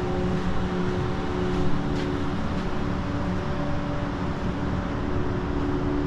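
Small quadcopter drone's propellers humming steadily, several tones holding with slight shifts in pitch, over a haze of surf and wind noise.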